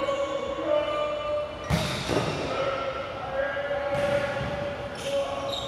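A ball hitting the floor, a few sharp thuds: one just under two seconds in, then two more near the end. Voices go on in the background.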